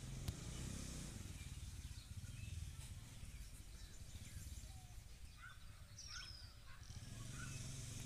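Quiet background hum and hiss, with a faint click just after the start and a few faint high chirps about five to six seconds in.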